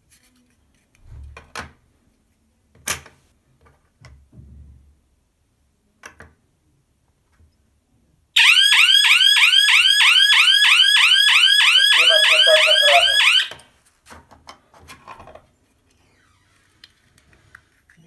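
Electronic alarm siren of a cheap wireless home-alarm kit, going off loudly about halfway through for some five seconds in fast repeated rising sweeps, about four a second, then cutting off. A few light knocks of plastic parts being handled come before it.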